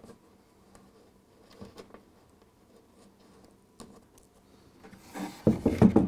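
Faint clicks and taps of fingers handling a model railway point on the baseboard, then a short burst of louder knocks and rubbing near the end.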